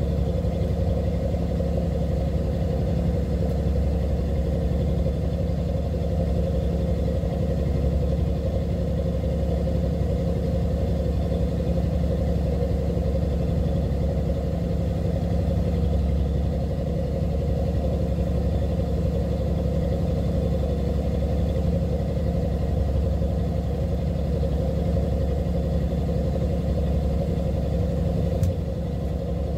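A fishing boat's engine running steadily: a low, even drone that holds the same pitch throughout, with a faint click near the end.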